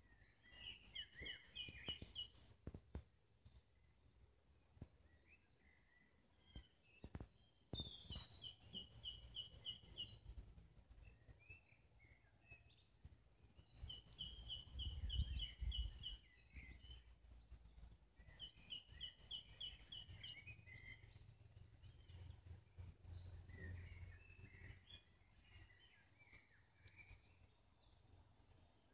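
A songbird singing four short phrases, each a quick run of about ten notes alternating between a higher and a lower pitch, with several seconds between phrases. Fainter scattered chirps fill the gaps.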